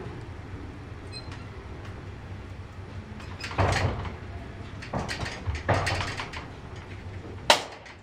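The collapsible steel lattice gate of a 1940s Otis goods lift is slid by hand, rattling and scraping in several pushes. A sharp metallic clack near the end is the loudest sound.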